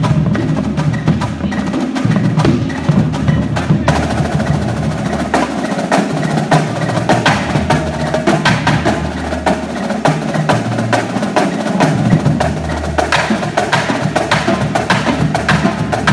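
Marching drumline snare line, with tenor drums, playing a fast, dense passage of rapid stick strokes and rolls, over a low steady hum.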